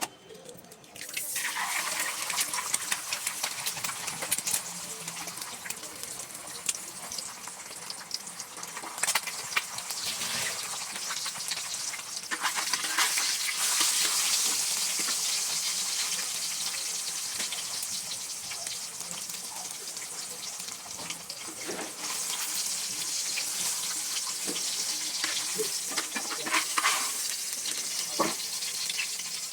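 Egg omelet sizzling in hot oil in a frying pan, a steady hiss that starts about a second in, with occasional clicks and scrapes from a utensil against the pan.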